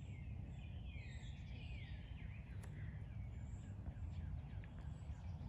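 Faint bird calls, a run of warbling notes sliding downward about a second in, over a steady low background rumble.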